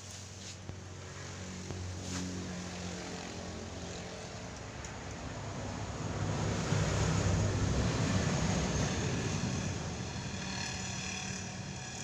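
An engine running steadily with a low hum, growing louder about six seconds in and easing off near the end.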